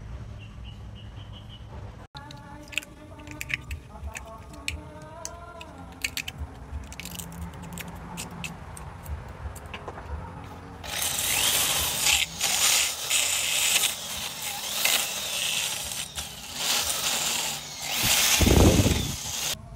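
Scattered clicks and knocks of handling, then about halfway in an electric drill with a sanding disc starts sanding a turned wooden bed post: a loud, rough scratching noise that rises and falls in surges and stops just before the end.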